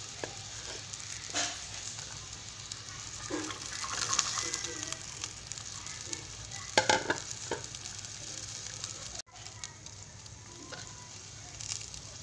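Broth cooking in an aluminium wok with a steady sizzling hiss, while a metal spatula scrapes and clinks against the wok now and then, loudest in a short clatter about seven seconds in.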